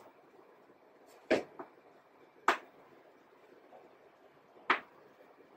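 Chalk writing on a blackboard: a few short, sharp chalk taps and strokes, four in all, spread through a faint room hum.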